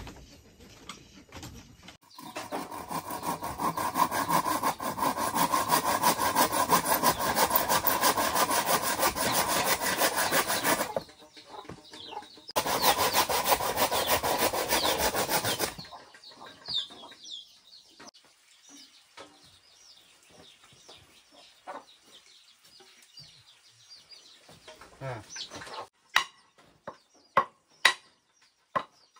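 A saw cutting through wood in two long, steady spells with a short break in between. Near the end, sharp wooden knocks about once a second as a wooden stake is struck.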